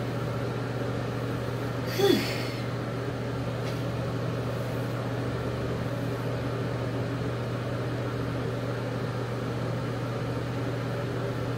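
Steady low hum of a bathroom exhaust fan. About two seconds in there is one brief voice sound.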